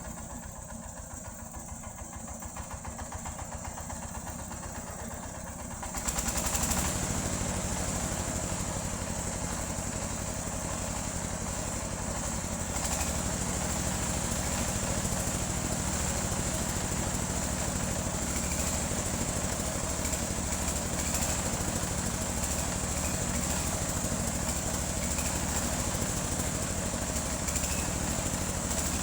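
Engine-driven sawmill running steadily with a low, even pulse; about six seconds in it steps up louder and fuller and stays that way.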